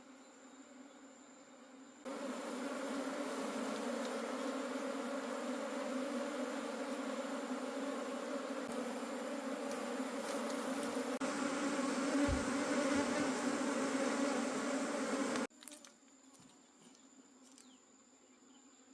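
Dense buzzing of a honey bee colony, many bees humming together. It starts suddenly about two seconds in and cuts off abruptly near the end.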